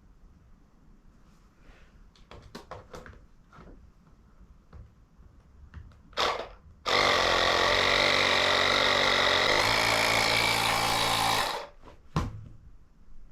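Small electric air compressor running for about four and a half seconds, inflating a freshly fitted motorcycle tyre to seat the beads, then cutting off suddenly. Before it, a few light clicks and knocks of handling, and a short burst of air just before the motor starts.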